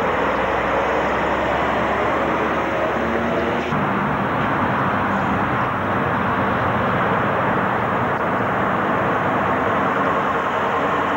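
Diesel lorry engines running as articulated trucks pull away: first a MAN tractor unit passing close by, then, after an abrupt cut a little under four seconds in, a Scania tractor unit pulling out and moving off.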